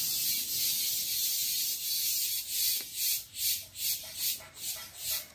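Cicada buzzing in a rhythmic, high-pitched pulse, about two to three pulses a second. Under it is a soft scraping of potting soil being worked by hand.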